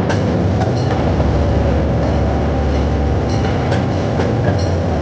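Open-air zoo ride-on train running along, its motor giving a steady low drone, with faint clicks and rattles from the passenger cars.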